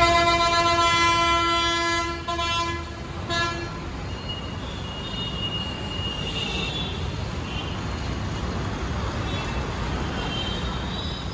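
A loud, steady horn held for nearly four seconds over city traffic noise, then the traffic carries on alone with faint honks in the distance.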